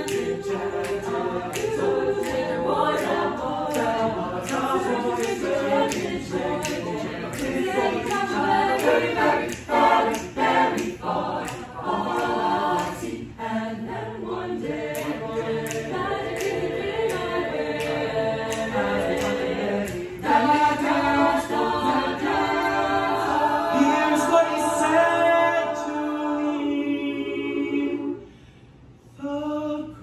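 Mixed-voice a cappella group singing in close harmony, mostly without recognisable words, over a steady clicking beat. The singing drops away for about a second near the end, then comes back in.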